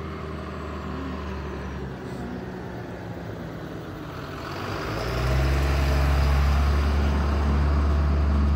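Bus engine running close by, a steady low rumble that grows much louder about five seconds in and holds there.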